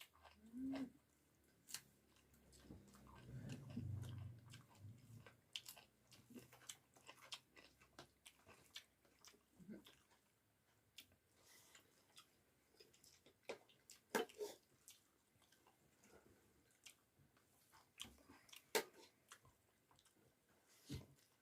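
Faint, close-up chewing and wet mouth sounds of a person eating rice and curry, with many scattered short clicks and smacks.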